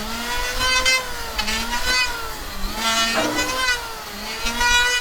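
Electric power tool's motor running under changing load, its pitch dipping and recovering again and again as it works the wood, with a harsher, brighter edge about once a second.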